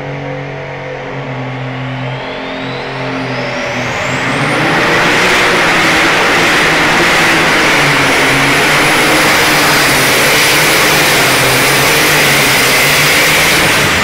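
Alcohol-burning Light Super Stock pulling tractor (Case IH) revving up from the start line, its turbocharger whistle rising in pitch. The engine then runs at full throttle for about ten seconds, loud and steady with a high whine over it, as it pulls the sled.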